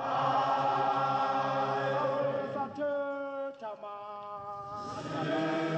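Background music of chanted, choir-like singing, with long held notes that change pitch a few times.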